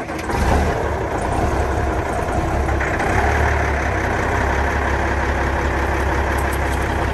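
The Cummins Big Cam IV inline-six diesel of a 1979 Peterbilt 359 just after start-up, its sound building over the first half second and then settling into a steady idle.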